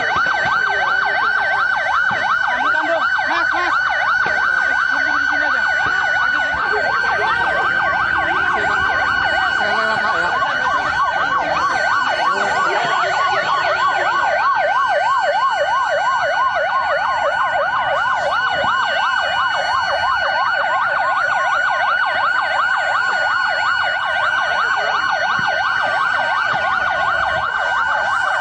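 Emergency vehicle siren sounding in a fast warble, its pitch sweeping up and down several times a second without a break, over a steady high tone.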